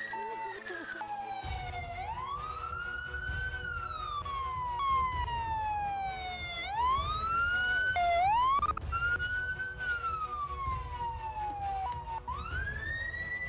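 Police car siren wailing, its pitch sweeping slowly up and then down about every three to four seconds.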